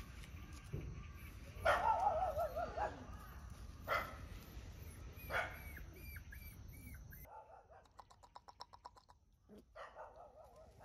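Month-old puppies crying in high, wavering whimpers and short yips: one long cry about two seconds in and another near the end.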